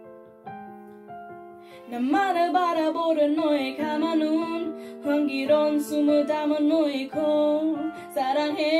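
K-pop song opening with soft piano chords, then a woman's singing voice coming in about two seconds in over the piano.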